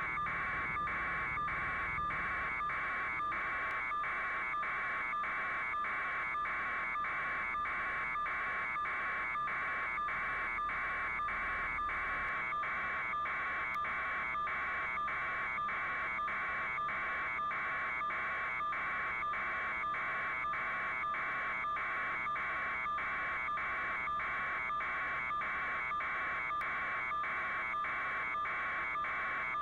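Steady buzzing noise that pulses fast and evenly and stays at one level throughout.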